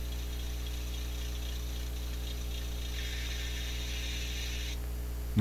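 1/80-scale Kiro 80 model diesel railcar's DCC sound decoder playing engine sound: a steady low hum with a hiss over it that grows brighter about three seconds in and then cuts off suddenly near the end. The cut-out is the sign of poor contact between the wheels and the rails interrupting the decoder's power.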